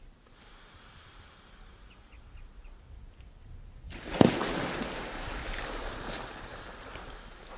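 A few faint bird chirps, then about four seconds in a crocodile bursts out of the water in a lunge: a sudden loud splash with one sharp hit at its start, followed by water churning and slowly settling.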